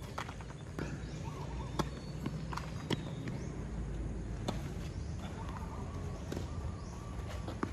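Tennis rally: sharp racquet strikes on the ball and ball bounces on the hard court, about one a second, over a steady low rumble.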